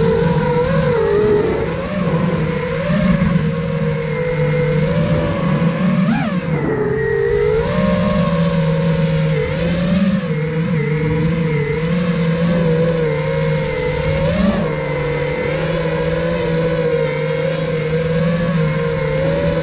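The four brushless motors and propellers of an iFlight Nazgul Evoque F5 5-inch FPV quadcopter whining steadily as it flies, the pitch wavering with throttle changes. There is a brief sharp rise in pitch about six seconds in and another near fifteen seconds, as the throttle is punched.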